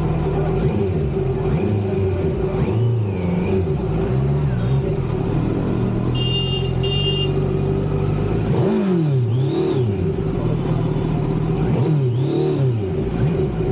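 Kawasaki Z900's inline-four engine running at low speed in traffic, its revs dipping and rising a couple of times with throttle changes. Two short high beeps sound about six seconds in.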